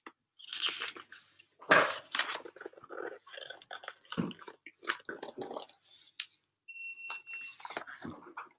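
Pages of a large hardcover picture book being turned and handled close to the microphone: paper rustling and crackling in an irregular run of bursts.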